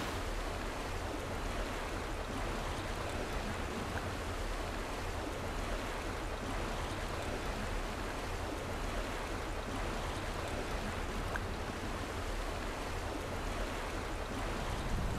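Steady, even rush of sea surf.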